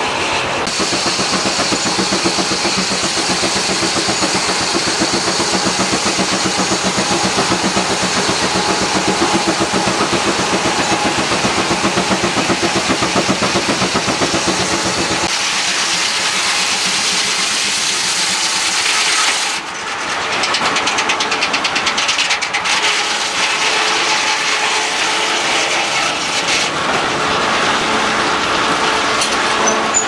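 Steam traction engine running under belt load, its exhaust beating in a fast steady rhythm. About halfway through the deep beat falls away and the belt-driven sawmill takes over, its circular saw and log carriage running with a brighter, noisier sound.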